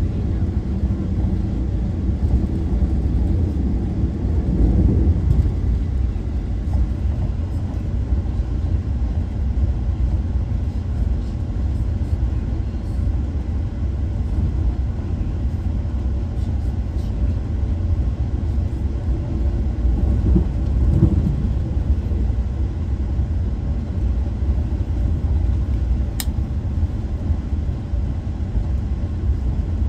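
Steady low rumble of an Amtrak Crescent passenger train in motion, with one brief sharp click near the end.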